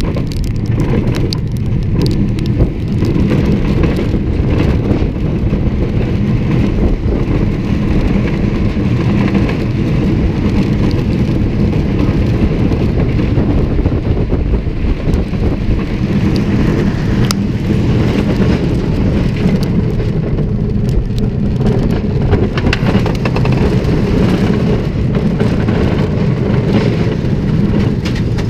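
Mine-train roller coaster running along its steel track at speed, heard from a camera riding on the train: a loud, steady rumble with scattered sharp clicks.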